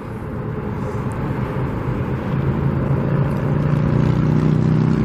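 Road traffic: a motor vehicle's engine hum and tyre noise growing steadily louder as it approaches.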